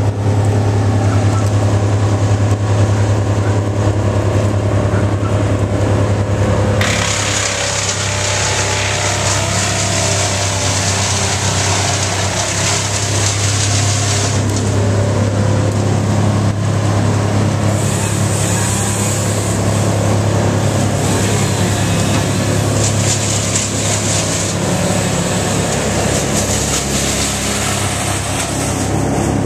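A large engine running steadily with a constant deep hum; a hiss rises over it about seven seconds in and comes and goes after that.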